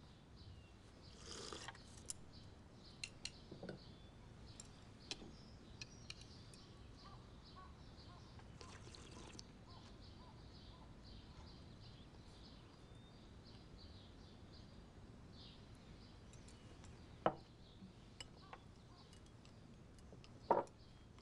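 Quiet eating with chopsticks: scattered light clicks and taps of chopsticks against the bowls and a sip of soup, with two sharper clinks near the end as chopsticks strike the porcelain rice bowl.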